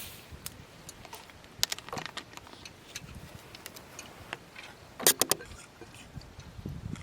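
Scattered light clicks and clacks of objects being handled, with a quick run of three sharp clicks about five seconds in.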